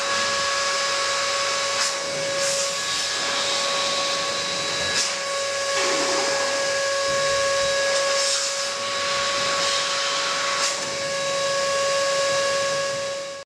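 Electric balloon pump running steadily: a constant motor whine over a rushing hiss of air, with a few faint clicks.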